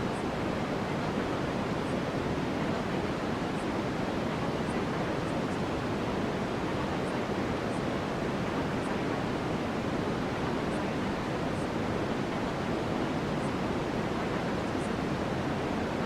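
Steady, unchanging white-noise track: an even hiss, fuller in the low and middle range, with a few faint short high ticks now and then.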